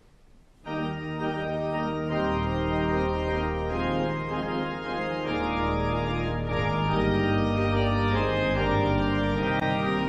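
Schoenstein & Co. pipe organ playing full, sustained chords over a deep pedal bass, coming in suddenly under a second in.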